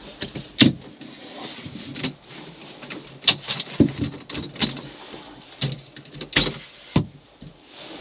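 Camera and tripod being handled: a dozen or so sharp, irregular knocks and clicks with some rustling, as the camera with a long lens is moved and adjusted on a tripod fluid head.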